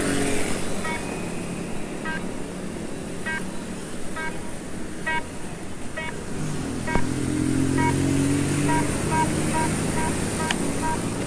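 Electronic beeping of a pedestrian crossing signal: short beeps about a second apart, quickening to about two a second in the last few seconds. Road traffic runs underneath: a motor scooter passing at the start and a vehicle engine humming from about halfway through.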